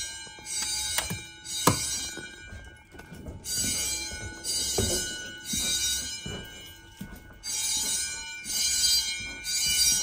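Fire alarm bells ringing in repeated short bursts, grouped with pauses between groups: a code-3 temporal evacuation pattern. A sharp knock sounds under two seconds in.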